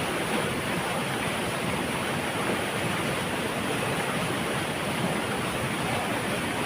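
Water rumbling as it pours through a dam, a steady unbroken rush.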